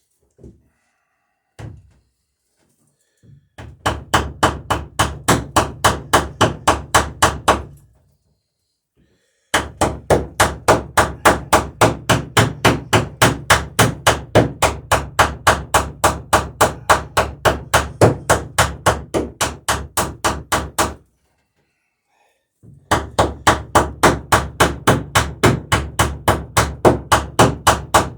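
A hammer strikes in rapid, even taps, about four to five a second, peening copper rivet ends over their burrs. The hammering comes in three long runs with short pauses between.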